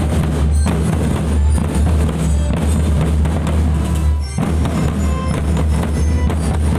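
A school marching drum band playing loudly: snare and bass drums beating a fast, steady rhythm, with a brief dip about four seconds in.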